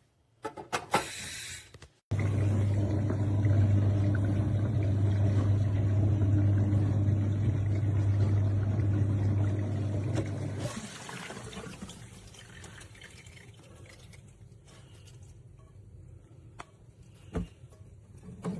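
Mini countertop dishwasher running a wash: the pump hums steadily over the sound of water moving inside the tub, then dies down about ten seconds in. A few clicks come in the first second.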